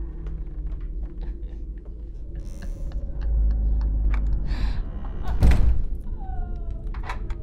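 Door chain lock and bolt being worked by hand: small metal clicks and rattles, with one heavy thunk about five and a half seconds in, over a low rumbling drone.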